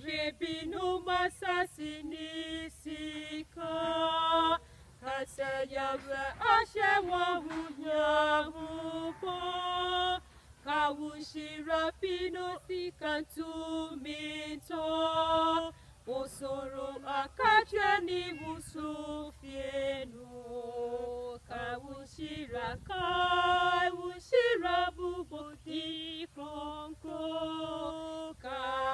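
Two women singing a hymn unaccompanied from hymnals, holding long notes with short breaks between phrases.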